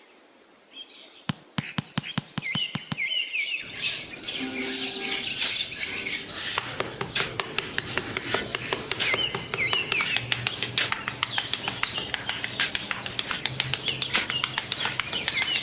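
Birds chirping in short repeated calls, among many sharp clicks and taps, after a quiet first second; a quick run of clicks comes in about a second in.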